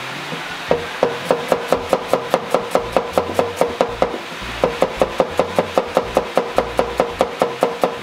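Cleaver chopping shallots on a chopping board: quick, even knocks of the blade on the board at about five a second, with a short pause about halfway through.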